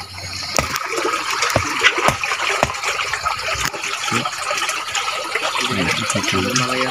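Shallow stream water running steadily over rocks, with a few sharp knocks and clicks in the first few seconds.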